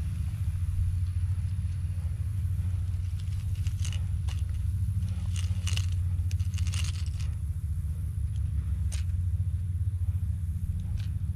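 Fishing pliers working a hook free from a landed fish: scattered sharp metallic clicks and light scrapes, several close together in the middle, over a steady low rumble.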